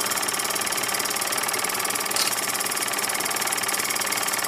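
Bowman PW201 model steam engine running steadily on compressed air at about 10 psi, a fast, even patter of exhaust beats. It is fairly quiet, with a little tink about two seconds in, which the owner puts down to the loose chimney.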